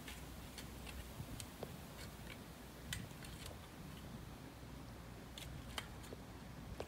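Faint, irregular clicks and ticks over a low steady rumble.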